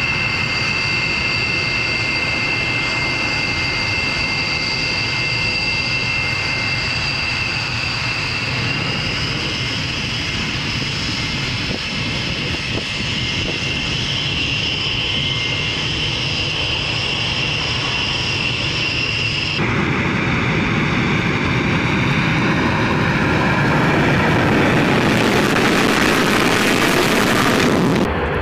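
A B-1B Lancer bomber's four General Electric F101 afterburning turbofans running with a steady high-pitched whine as the bomber rolls along the runway. About two-thirds of the way through, the sound changes abruptly to a broad jet roar on the take-off run, which grows louder toward the end.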